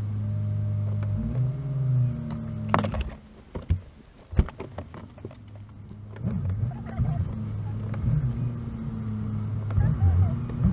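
Car cabin driving noise played at four times speed: engine and road hum raised in pitch into steady tones. The hum drops away about three seconds in, with a few sharp knocks, then resumes about six seconds in.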